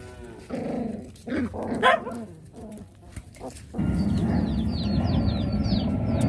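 Puppies playing and giving short yips and whines, with the loudest yelp about two seconds in. A bit before four seconds the sound changes to a steady rushing background noise with a high, quick chirp repeated a few times a second, like a small bird.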